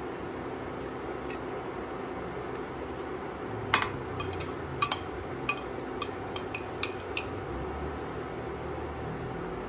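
Utensil clinking against dishes: a quick, uneven run of about ten light, ringing clinks lasting a few seconds, starting a little over a third of the way in, over a steady low kitchen hum.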